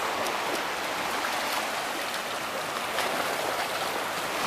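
Sea surf washing on the shore: a steady rushing hiss of water, with faint crackling ticks.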